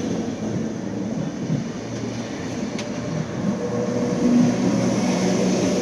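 Vintage Sydney 'Red Rattler' electric train's carriages rolling past along the platform: a steady rumble of wheels on the rails with a low hum, getting a little louder about four seconds in.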